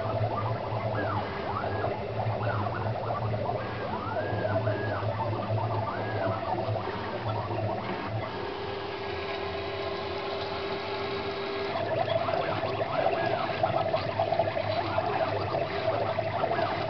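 Stepper motors of a home-built CNC router driving its axes: short whining tones that rise and fall in pitch with each move as the motors speed up and slow down, over a steady low hum. In the middle the whine settles into one steady tone for about three seconds, a move at constant speed.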